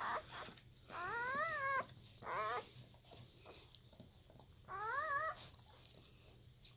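Newborn German Shepherd puppy whining: three high, thin cries that rise and waver in pitch, the first and last a little under a second long, a short one between.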